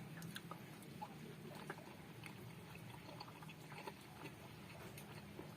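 Faint eating sounds while eating eggs: small scattered clicks and wet smacks, irregular, over a low steady hum.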